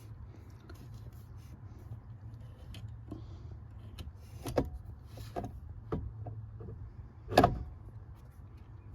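Scattered clicks and knocks of metal parts being worked loose as the electric motor is taken off a car's steering column, over a steady low hum; the loudest knock comes near the end.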